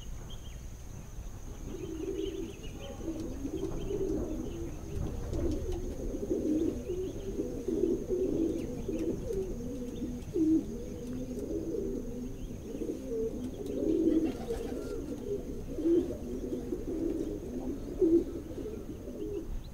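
Pigeons cooing, low overlapping calls running on almost without a break from about two seconds in.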